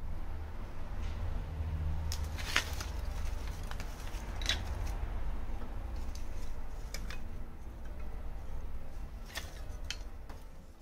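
Thin wooden kindling sticks knocking and clattering as they are laid into a small wood fire in a firebox: a few separate sharp knocks over a low steady rumble.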